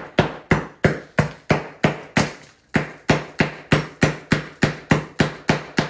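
Large kitchen knife chopping a sugar loaf on a countertop, the blade striking the hard sugar in rapid, even knocks about three a second, with a brief pause a little under halfway through.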